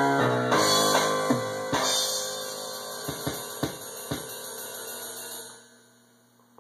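The closing bars of a song: the band's last notes ring on with cymbals and a few drum hits, then fade away to near silence about five and a half seconds in.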